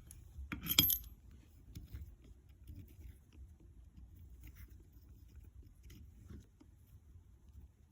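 A sharp metallic clink a little under a second in, with a brief ring, then faint scattered ticks of small metal tools and parts being handled, over a low steady hum.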